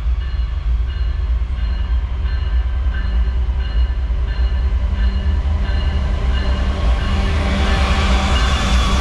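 A train passing close by: a loud, steady, heavy rumble with faint repeating high tones, and a hiss that grows louder in the last couple of seconds.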